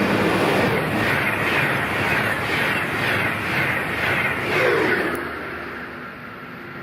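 High-speed passenger train rushing past on the track, with a rhythmic swell about twice a second as the cars go by. The rush fades away about five seconds in.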